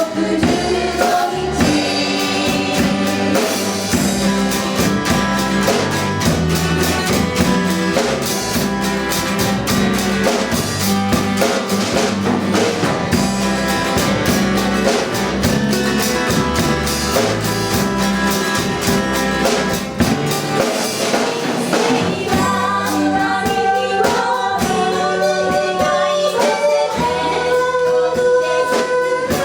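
A large band playing live, with voices singing over the instruments and a steady percussion beat. About twenty seconds in, the beat falls away and long held sung and played notes carry on.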